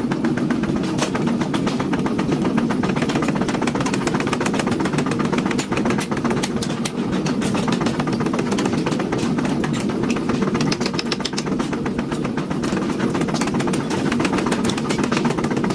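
Hammer blows on hot steel in rapid, irregular succession, many strikes a second, over a steady low machine drone.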